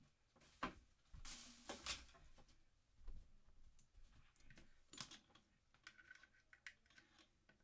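Scattered faint clicks and knocks with a short rustle about a second in: objects, including a computer keyboard, being handled and moved around on a desk.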